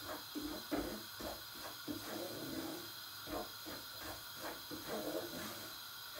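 Wooden spoon stirring and scraping semolina roasting in butter in a pot, in short even strokes about three a second.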